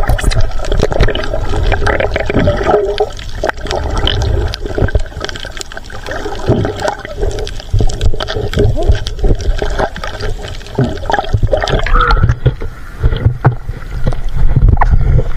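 Water sloshing and gurgling around a submerged action camera: a heavy, muffled underwater rumble with irregular crackling of bubbles, growing louder as it breaks the surface near the end.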